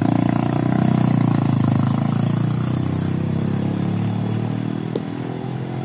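A small engine running steadily close by, loudest in the first couple of seconds and then easing off slightly, with a single sharp click about five seconds in.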